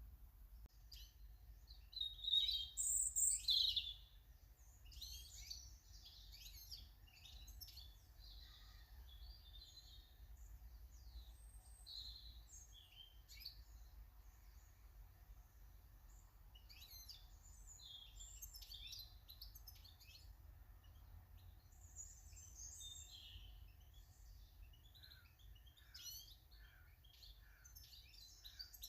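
Small garden birds chirping and singing in quick, high, scattered calls, with the loudest burst of calls about two to four seconds in.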